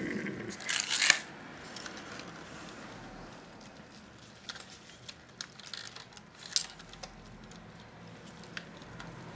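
Hands handling the wiring and circuit board of an opened Philips D6350 cassette recorder: a short rustle about a second in, then scattered small clicks and taps.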